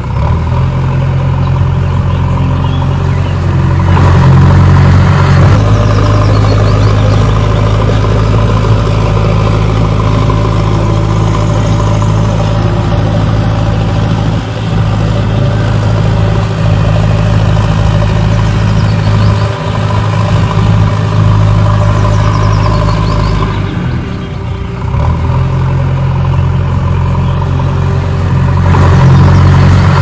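Engine running steadily with a deep, even hum; its note and loudness change a few times, rising about four seconds in, dipping around twenty-four seconds and rising again near the end.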